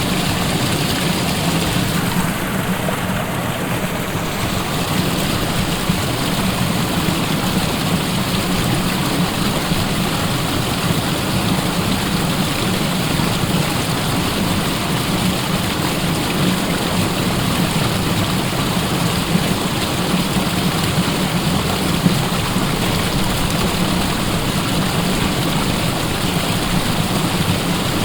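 Waterfall: water falling and rushing in a steady, continuous roar with no change.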